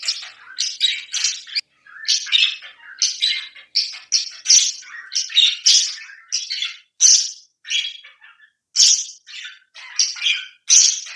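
Pet parrots calling in a steady run of short, harsh squawks and chirps, two to three a second, with a couple of brief pauses.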